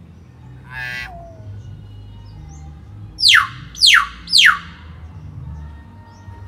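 Young hill myna (beo) calling: a short call that drops in pitch at its end about a second in, then three loud whistles in quick succession, each falling steeply in pitch, between about three and four and a half seconds in.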